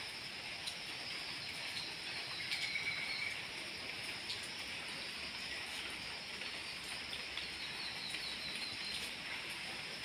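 Background ambience: a steady hiss with a few short bird chirps and trills, once early on and again near the end.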